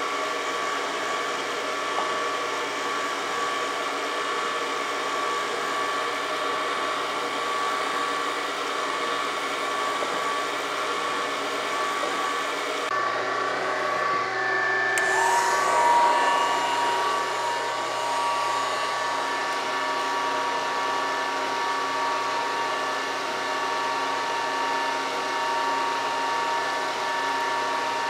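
Brown & Sharpe surface grinder running steadily while it warms up, a constant machine hum from its wheel spindle and hydraulics; when it sits it takes in air, which running works out. The pitch of the hum shifts slightly about halfway through.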